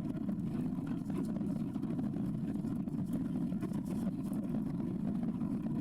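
Strong wind buffeting the microphone: a steady low rumble with no break.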